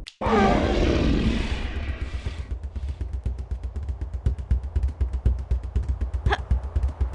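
A played-back novelty sound effect. It opens with a sharp click and a loud burst whose tones fall away over about two seconds, then turns into a fast, low, rattling train of pulses.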